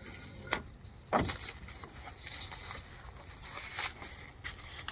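A few scattered knocks and clicks as loose steel sawmill parts are handled, the loudest a dull thump about a second in.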